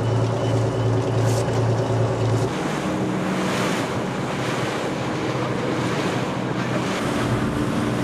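Charter fishing boat under way: water rushing past the hull and wind on the microphone over the faint steady run of the engine. For the first two and a half seconds a low steady hum dominates, then it gives way to the wider rush of water and wind.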